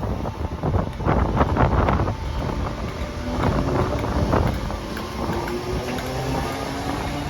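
Class 507 electric multiple unit pulling away from the station, its traction motors whining in steady tones that rise slowly in pitch as it gathers speed. Gusts of wind on the microphone in the first couple of seconds.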